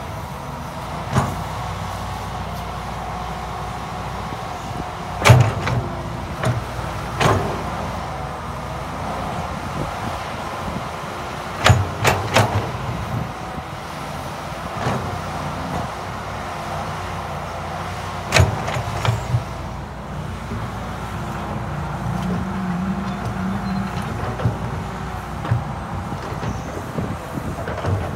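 Tracked excavator's diesel engine running steadily under load while the bucket scrapes and pushes topsoil. Sharp knocks come every few seconds, the loudest about five, twelve and eighteen seconds in.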